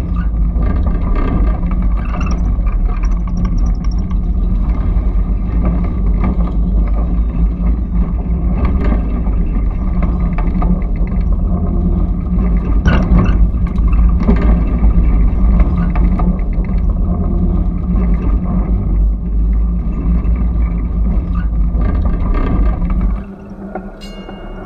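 Electric trolley car running along the track, heard on board: a steady rumble of wheels on rails and motors with scattered sharp ticks. The rumble drops away suddenly near the end, leaving a much quieter sound.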